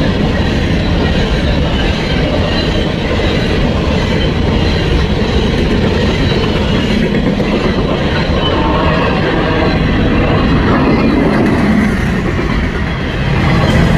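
Coal train's freight cars rolling past, with steady wheel-on-rail noise.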